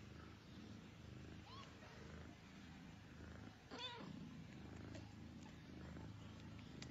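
A cat purring softly and steadily. A faint, high, rising squeak comes about a second and a half in, and a short, wavering newborn-kitten mew about four seconds in.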